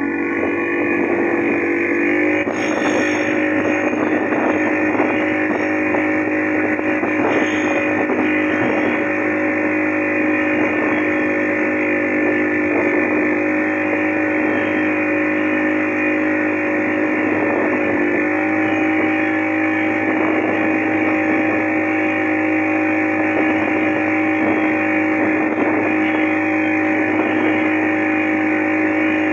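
Motorboat engine running steadily under way. Its note steps up slightly about two seconds in.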